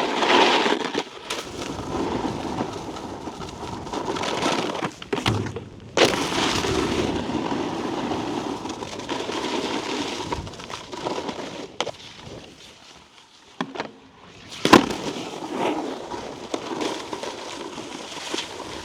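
Snowboard running over icy, slushy snow, the base and edges scraping and chattering, with a few sharp knocks. A quieter stretch about two-thirds through ends in the loudest knock, like a landing or the board hitting a feature.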